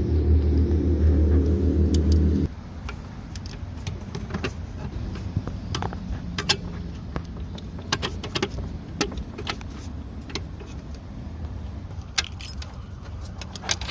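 A loud, steady low buzz that cuts off abruptly about two and a half seconds in, followed by a run of clicks and light metallic rattling from small parts being handled.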